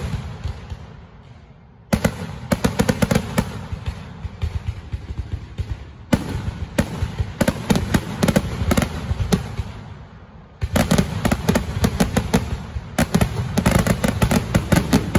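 Fireworks finale barrage: aerial shells bursting in quick succession, a dense run of sharp bangs and crackles. The firing fades briefly and starts again suddenly about two seconds in, and again about ten and a half seconds in, with the densest volley near the end.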